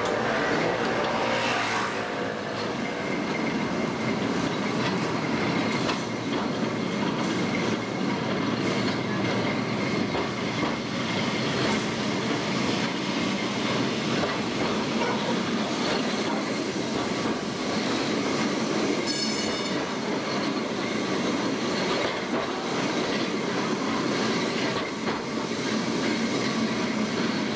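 A 1930s vintage Lisbon tramcar heard from inside, running along its rails with a steady rolling rumble and clickety-clack. A thin steady high tone runs through it, and a brief high ringing comes about two-thirds of the way through.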